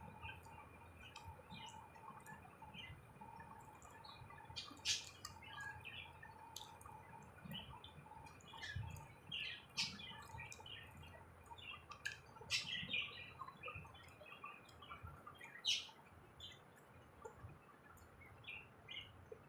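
Close-up eating sounds of luchi and potato curry: a run of small, irregular wet mouth clicks and lip smacks while chewing, with a few sharper clicks about 5, 10 and 16 seconds in.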